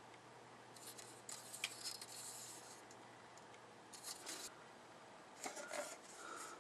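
Plastic model-kit sprues being handled and turned over: light plastic rattling and scraping in three short spells, with a sharp click about a second and a half in.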